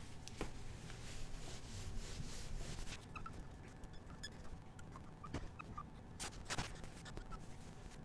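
Marker pen drawing on a whiteboard, faint: scratchy strokes at first, then short high squeaks of the tip from about three seconds in, with a few sharp taps as the pen meets the board.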